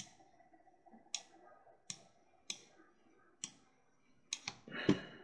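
Computer mouse clicking, about seven separate sharp clicks at irregular intervals as menus and options are picked. Near the end there is a brief louder, noisier sound.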